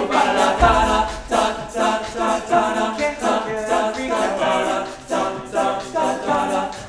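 Male a cappella group singing in harmony, with several voices together and no instruments.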